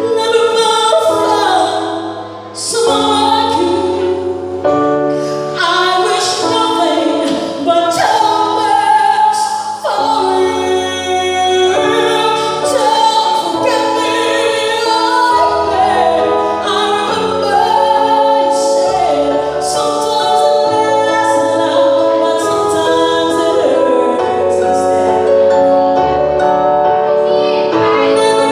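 A woman singing a slow ballad into a microphone, with electronic keyboard accompaniment and held bass notes underneath.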